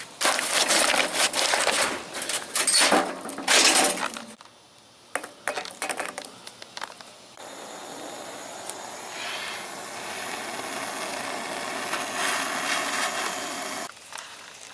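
Loud clattering and crackling around a metal charcoal chimney starter for the first four seconds. From about seven seconds in, a handheld propane torch hisses steadily as its flame lights the charcoal in the chimney, cutting off abruptly about a second before the end.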